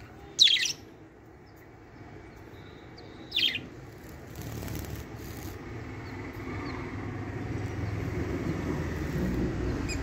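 Budgie giving two short, sharp chirps about three seconds apart, the second fainter. A low rumble builds up underneath through the second half.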